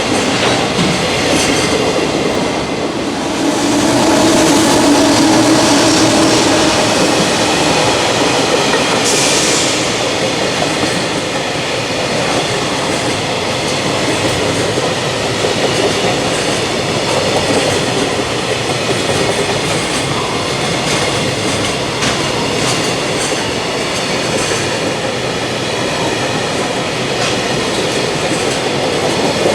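A JR Freight container train running past, a loud, continuous rumble and rattle of wagons on the rails. A low steady hum joins in for a few seconds about four seconds in.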